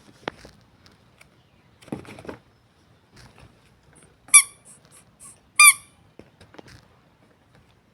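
Squishy toy or stress ball squeezed in the hand, giving two loud, short, high-pitched squeaks about a second apart, with fainter squeaks between them and soft rustling of handling around them.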